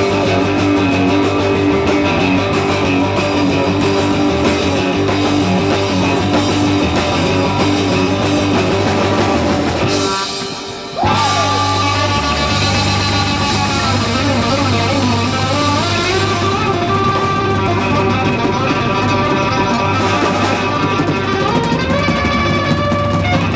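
Live rock band playing an instrumental passage led by guitar over bass and drums, with a short break about ten seconds in and bending guitar notes after it.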